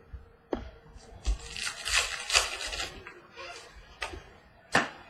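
Trading cards being handled: cards sliding and rustling against each other, with a sharp tap about half a second in and another near the end.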